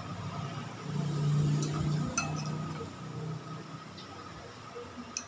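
Two sharp clinks of a metal spoon against a balut egg's shell, one about two seconds in and one near the end, over a low steady hum that swells and fades in the first half.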